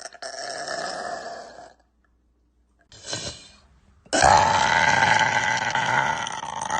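A woman burping: a burp of about a second and a half, a brief sound about three seconds in, then a louder, longer burp of nearly three seconds.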